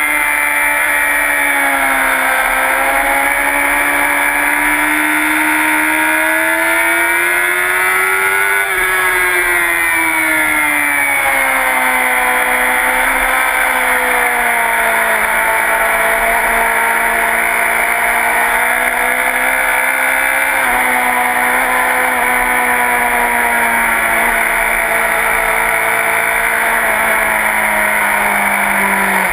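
Racing motorcycle's engine heard from onboard at high revs. Its pitch climbs for several seconds, drops off from about nine seconds in, then holds and eases slowly lower toward the end, as the bike is ridden through a run of track corners.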